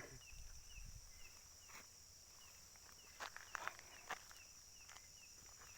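Night insects chirring in a steady high-pitched drone, with a short chirp repeating about twice a second, and a few soft clicks and rustles about three to four seconds in.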